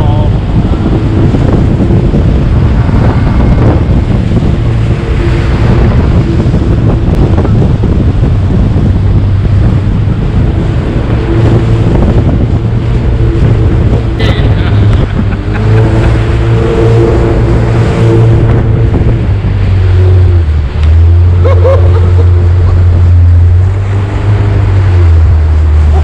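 Jet boat engine running under load while the boat powers through rapids, with rushing whitewater and wind buffeting the microphone. The engine note steps up and down several times as the throttle changes.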